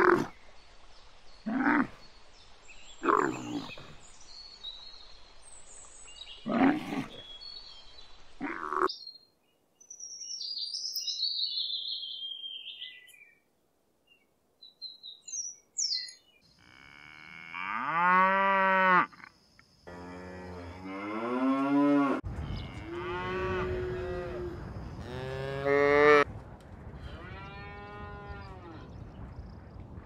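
A sequence of animal calls: a dromedary camel's short grunts, then a blue-winged kookaburra's high chattering calls, then cattle mooing about five times in long calls that rise and fall.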